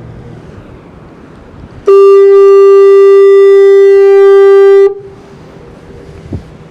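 Fog horn sounding one very loud, steady blast of about three seconds on a single pitch rich in overtones, starting about two seconds in and cutting off sharply.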